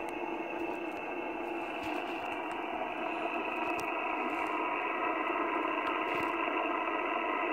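Ten-Tec Argosy HF transceiver receiving band noise: a steady hiss of static from its speaker with the highs cut off, growing slightly louder.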